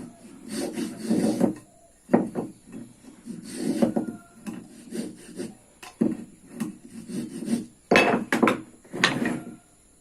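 Wood being scraped by hand, in irregular strokes of about half a second to a second each, with a few sharper knocks near the end.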